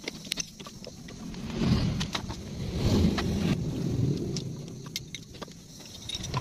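A few light metallic clicks as the scooter's gear-oil drain bolt is worked loose with a socket wrench, then a low rumble that swells and fades over a few seconds.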